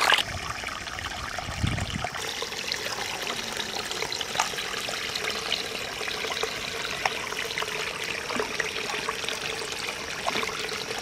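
Water running steadily through a small gap cut in a paddy-field bank, trickling and pouring into a fine mesh net, with small splashy ticks throughout.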